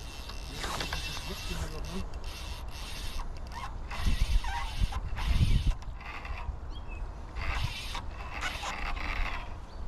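Fly reel ratchet clicking in short bursts while a hooked salmon is being played, with a few heavy low rumbles about four to six seconds in.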